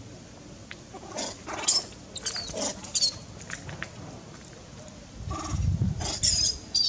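Long-tailed macaques screaming: short, shrill squeals in two clusters, one about a second in and one near the end, with a low rumble about five seconds in.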